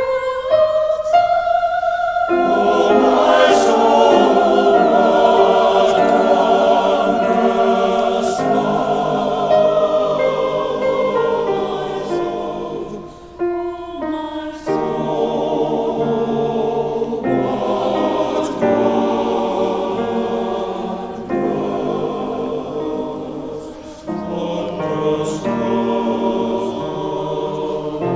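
Church choir singing a slow piece in sustained chords, with short breaks about thirteen seconds in and again about twenty-four seconds in.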